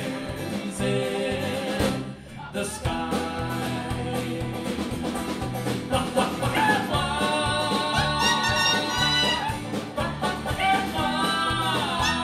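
Live country band playing with a steady beat: strummed acoustic guitar over bass and drums. About halfway through, long held sung notes join in over the band.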